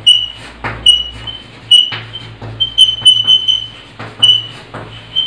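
Chalk squeaking on a blackboard during writing: a series of short, high squeals about once a second, several in quick succession near the middle, with a few light taps of the chalk between them.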